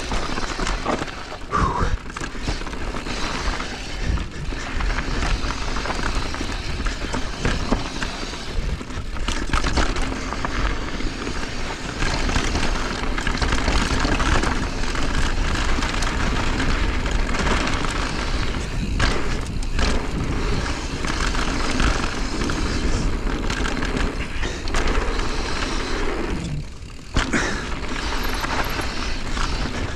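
Mountain bike ridden down a rocky trail: wind buffeting the microphone, with the tyres and bike rattling and thudding over rocks, and a brief lull about 27 seconds in.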